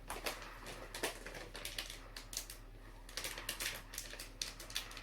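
Irregular light clicks and taps from handling pizza toppings and kitchen items on a worktop.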